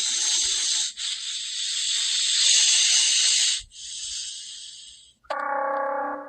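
Computer-reconstructed T-Rex call: a long, loud hiss, broken for an instant about a second in, that drops after about three and a half seconds to a softer hiss. Near the end a steady, pitched droning tone with overtones begins.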